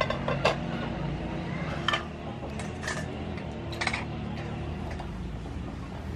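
Aluminium pot lid clinking against the rim of the cooking pot as it is set on and lifted off, a few short sharp metallic clinks over a low steady rumble.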